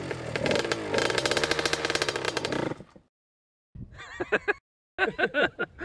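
Small two-stroke dirt bike engine running and revving, its pitch rising and falling, then stopping abruptly about three seconds in.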